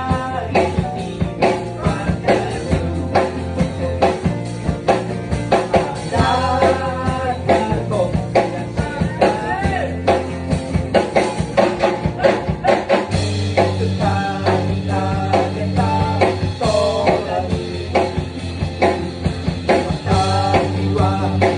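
Rock band playing live: a singer over electric guitar and drum kit, with a steady beat. The low end gets fuller about two-thirds of the way through.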